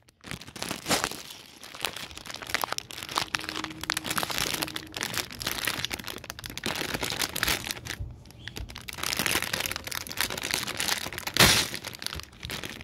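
Close crinkling and rustling, like plastic being handled, with many irregular clicks and cracks and a sharper crack about eleven and a half seconds in.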